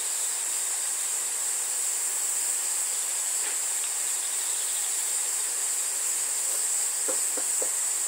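Steady high-pitched drone of insects singing outdoors, unbroken throughout. Near the end come a few short, faint voice sounds.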